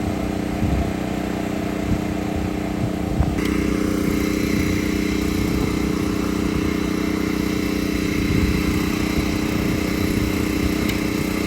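DJI Agras T30 agricultural spraying drone, its rotors giving a steady, even hum made of several held tones, which shifts slightly about three seconds in.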